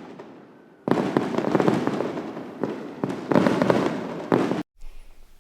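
Consumer fireworks cake of 30 mm timerain mine and timerain hammer shells firing in rapid succession: a dense volley of reports with crackle in several stretches, cutting off suddenly near the end.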